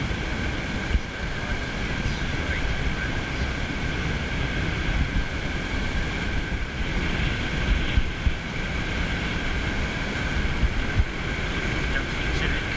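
Wind buffeting the microphone in a steady low rumble, with small waves washing onto the beach.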